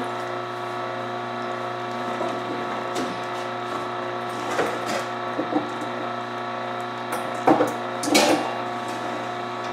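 Vertical slow juicer's motor running with a steady hum, while cookware clatters and knocks a few times as a metal strainer bowl is pulled from a lower cabinet. The loudest knocks come near the end.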